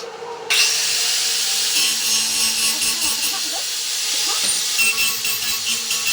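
Metalwork on steel, a steady harsh hiss with faint crackle that starts suddenly about half a second in.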